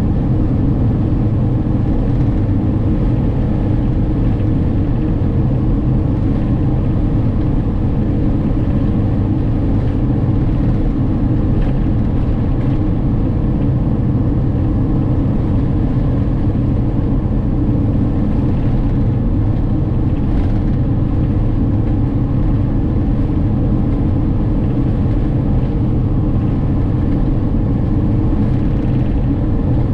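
Camper driving at a steady speed on a sealed road, heard from inside the cabin: an even engine and tyre rumble with a faint steady hum that does not change.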